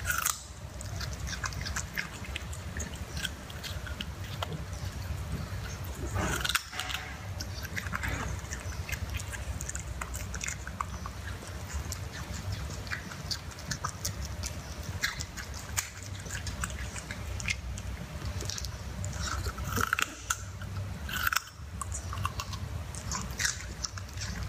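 Puppy chewing and crunching a whole raw carrot, with irregular small crunches and clicks of teeth and a few louder bites, over a steady low hum.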